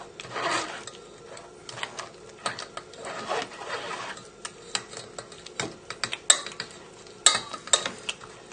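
A utensil scraping and pressing puréed celery soup through a sieve, with irregular wet scrapes and sharp taps against the sieve. The sharpest taps come about six and seven seconds in.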